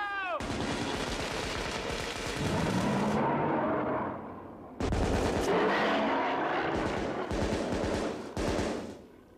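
Several rifles firing in a dense, rapid barrage of shots. It breaks off briefly about four seconds in, resumes, and stops shortly before the end.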